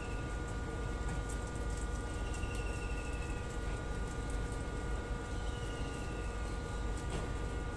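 Steady low rumble with a constant hum, under the faint clicking crunch of young rabbits chewing leafy greens. A high, falling trilled call comes twice, about two seconds in and again near six seconds.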